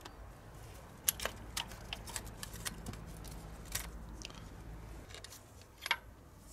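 Scattered small metallic clicks and scrapes of needle-nose pliers gripping and working the fittings around a diesel injector in the cylinder head.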